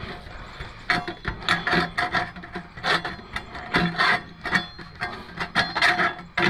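Flue pipe being pushed and twisted into a metal wall thimble and silicone boot, scraping and squeaking in irregular strokes from about a second in.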